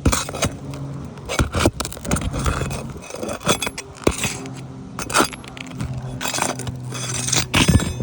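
A metal tool scraping and clicking against asphalt shingles and roofing nails as the nails are pried loose to free a shingle, in irregular clinks and scrapes that bunch together near the end. A steady low hum runs underneath.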